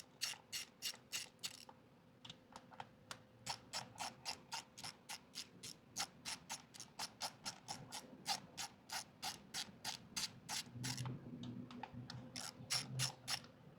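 Hand ratchet wrench clicking as it is worked on the motorcycle's sprocket-cover bolts: quick, even clicks at about five a second, in several runs with short pauses.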